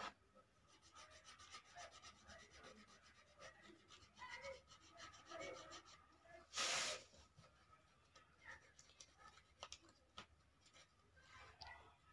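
Coloured pencil rubbing faintly on paper in short colouring strokes, with one brief louder rustle about seven seconds in.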